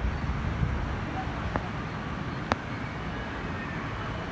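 Steady outdoor background noise with a low rumble, faint voices, and two short sharp clicks about a second apart near the middle.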